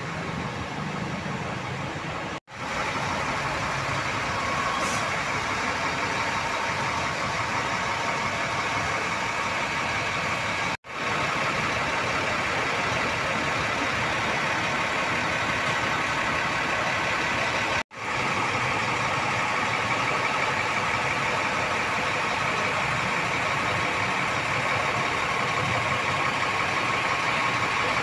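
A large diesel bus engine idling steadily, with a faint whine over the hum. The sound breaks off sharply for a moment three times.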